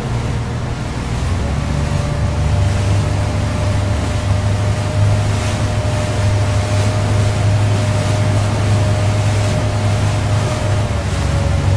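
Small motor ferry's engine running steadily under way, with water rushing past the hull and wind. The engine gets a little louder and higher in pitch about a second or so in, then holds steady.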